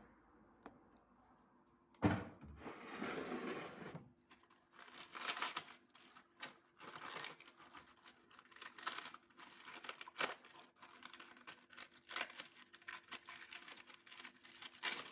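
Cut cabbage being handled for washing: after about two seconds of quiet, a noisy rush lasting about two seconds, then quiet, irregular rustling and crinkling.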